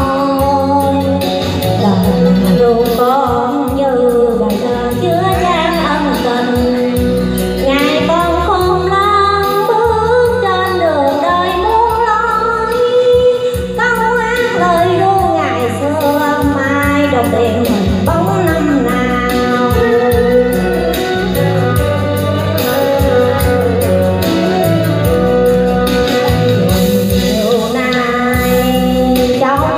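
A woman singing a song through a handheld microphone over backing music with a steady beat.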